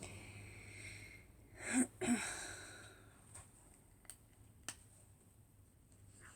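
A short breathy sigh from a woman about two seconds in, followed by a few faint sharp clicks.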